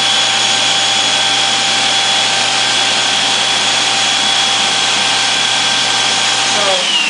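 Electric motor of a wood-floor cleaning machine running with a steady high whine and hum, then switched off near the end, its whine falling in pitch as it winds down.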